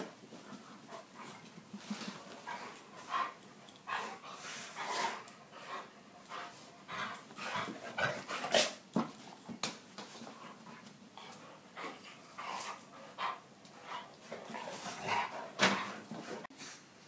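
Dogs playing rough together and vocalizing in short, irregular bursts.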